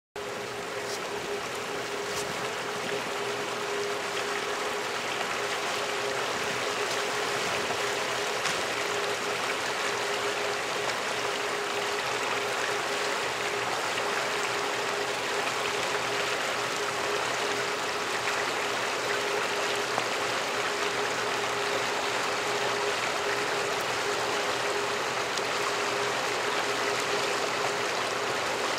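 Water of a partly frozen, ice-edged stream flowing, a continuous steady rushing that cuts in suddenly at the start, with a faint steady hum underneath.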